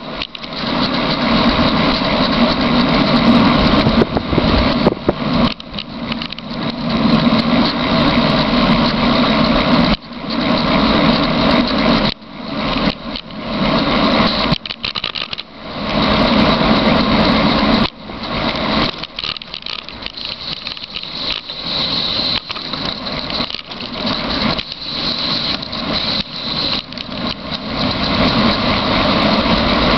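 Wind rush and rolling noise from a bicycle coasting fast downhill. It is loud and uneven, with several brief drops in level.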